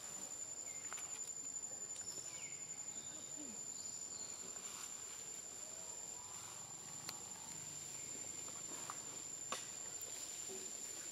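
An insect's steady, high-pitched drone, one unbroken tone, with a few soft crackles in dry leaf litter.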